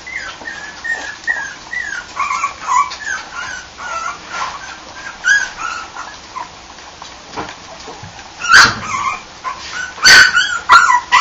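English Bulldog puppy whimpering and whining in a string of short, high cries, with a few loud sharp sounds about two-thirds of the way in and near the end.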